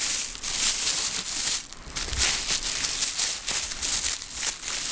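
Plastic packaging crinkling and rustling in irregular bursts as the ShengShou 8x8 cube is unwrapped and handled.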